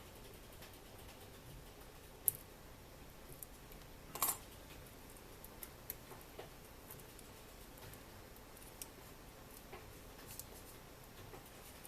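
Faint scattered clicks and taps of small objects being handled, with one sharp click about two seconds in and a brief louder rattle about four seconds in, over quiet room tone.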